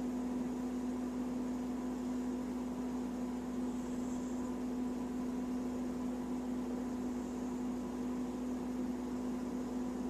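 A steady mechanical hum over a faint even hiss, unchanging throughout, with no audible rise and fall of breathing.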